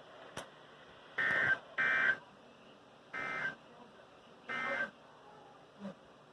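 Emergency Alert System end-of-message data bursts: four short bursts of two-tone digital data tone, the first two louder than the last two, signalling the end of the alert. A click comes just before they begin.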